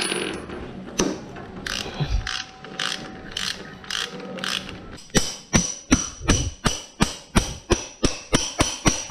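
Ratchet wrench clicking as it turns a nut on a motorcycle's primary drive. The clicks are slower and uneven at first, then from about halfway become regular and louder, roughly three a second.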